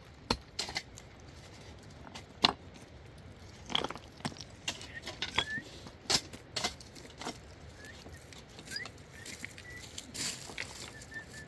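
Stones clinking and knocking against each other at irregular intervals as they are handled and set in a stone wall.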